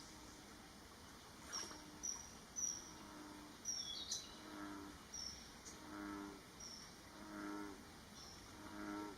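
Juvenile common kingfisher giving short, high, thin whistled calls, about eight over the first seven seconds, one a little after four seconds sliding down in pitch. From about four seconds in, a deeper call repeats roughly every one and a half seconds under it.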